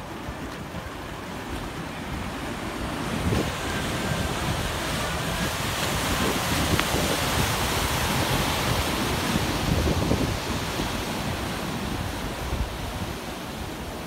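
Ocean surf breaking and whitewash rushing, swelling about three seconds in, loudest in the middle and easing near the end. A low rumble of wind on the microphone runs underneath.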